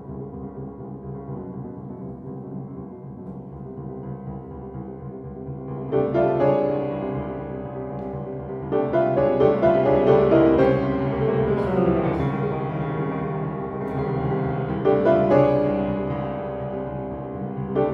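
Grand piano played solo: a dense, steady low-register rumble of rapidly repeated notes, with louder, higher chords breaking in about six seconds in, again around nine seconds and once more near fifteen seconds.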